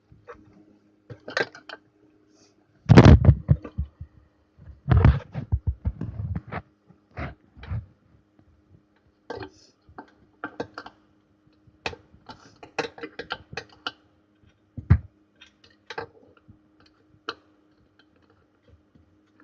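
10 mm spanner undoing the horn's mounting bolt on a Honda Activa scooter: scattered metallic clicks and scrapes, with heavier knocks about three seconds in, around five to six seconds in, and again near fifteen seconds. A faint steady hum runs underneath.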